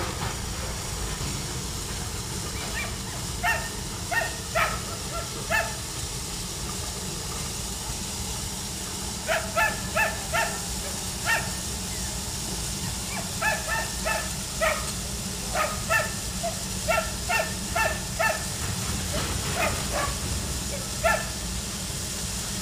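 A dog barking on and off in quick runs of several barks, with a pause of a few seconds about a third of the way in, over a steady low rumble.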